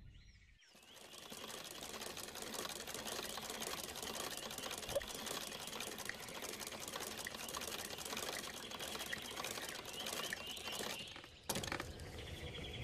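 A sewing machine running steadily with a fast, even clatter. It stops near the end, where a single knock follows.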